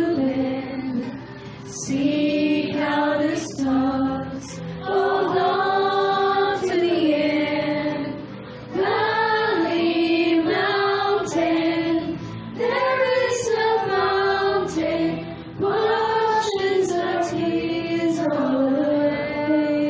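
A group of voices singing a slow song together, with a woman's voice leading through a microphone; long held notes in phrases separated by short pauses for breath.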